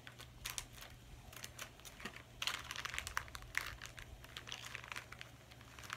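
Crinkling and rustling of a small toy blind-bag packet being handled and torn open, in quick irregular crackles that grow busiest about two and a half to three and a half seconds in.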